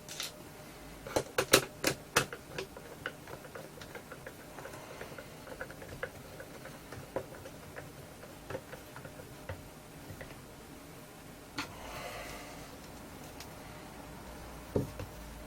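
Screws being driven back into a wireless speaker's housing with a screwdriver: a few sharp clicks and taps about one to two seconds in, then a long run of quick light ticks, and another knock near the end.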